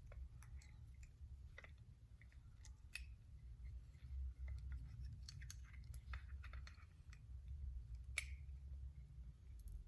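Faint scattered clicks and light taps of small metal hair-clipper parts being handled and fitted together, with one sharper click about 8 seconds in, over a low steady rumble.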